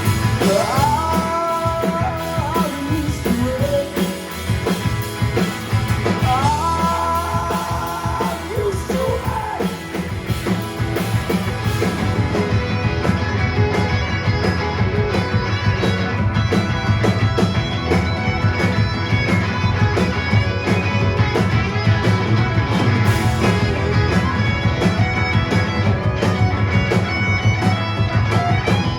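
Live indie rock band playing an instrumental passage with electric guitars, bass guitar and drums, with sliding, bending notes in the first several seconds.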